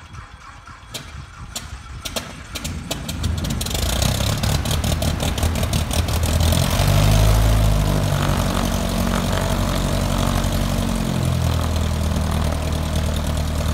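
Cold start of a Van's RV-14's Lycoming four-cylinder aircraft engine. The starter cranks the propeller with a string of single firings, the engine catches about three and a half seconds in and revs up briefly, then settles to a steady idle.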